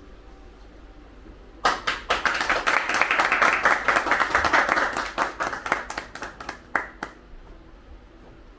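A group of people clapping: the applause starts suddenly about two seconds in, holds for about three seconds, then thins to a few scattered claps and stops about seven seconds in.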